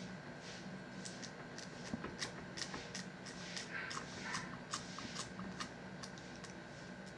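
A run of small, sharp, irregular clicks and taps, from about a second in until about six seconds in, from hands and utensils working the sticky caramel candy on a greased plate. A faint steady hum runs underneath.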